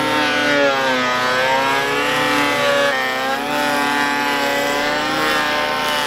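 Electric hand planer running along a rough-sawn timber beam, its motor whine sagging in pitch as the blades bite into the wood and recovering as the load eases, several times over.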